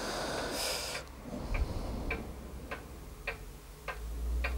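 Faint, regular ticking, about one tick every 0.6 seconds, over a low steady hum, with a short hiss near the start.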